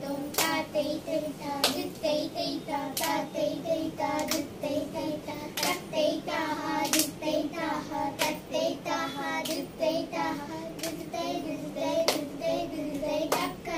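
Three girls reciting a korvai's rhythm syllables together in a chanting voice while clapping Adi tala with their hands; sharp hand claps land about every second and a third under the chant.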